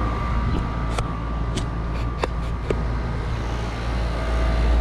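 HVAC unit running with a steady low hum. A few sharp clicks fall about half a second apart, and the hum grows louder near the end.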